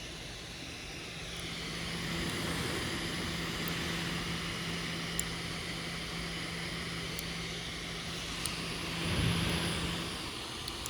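Lenovo ThinkPad P1 Gen 3 laptop cooling fan whirring, speeding up about two seconds in and again near the end, with three faint sharp clicks in between, which the owner guesses come from the metal heat pipes and vents expanding.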